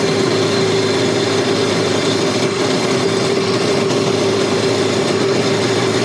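1990 Sea-Doo SP's two-stroke Rotax 587 twin idling steadily, just after being started.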